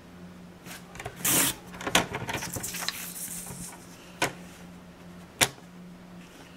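A paper sheet being handled on a sliding-blade paper trimmer: rustling and sliding as it is turned and lined up, the trimmer's cutter head sliding along its rail, and a few sharp plastic clicks, the loudest about five seconds in.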